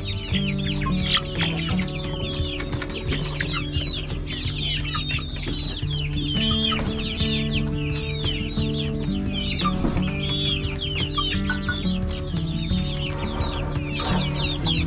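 A flock of chickens clucking and chirping, with many short high calls overlapping throughout. Background music with held notes runs underneath.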